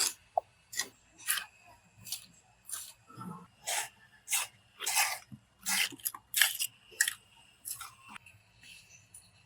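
A run of short rasping strokes, about one and a half a second and roughly fourteen in all, that stop a little after eight seconds.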